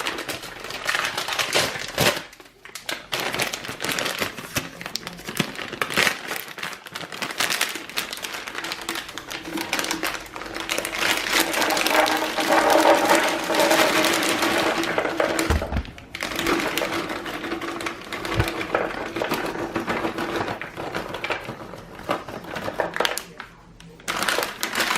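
Walnuts being tipped into a blender jar, a dense rattling clatter of nuts against the jar with brief lulls about two seconds and sixteen seconds in.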